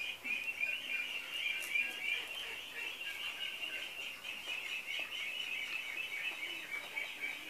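A steady background chorus of rapid, high-pitched chirping that goes on without a break.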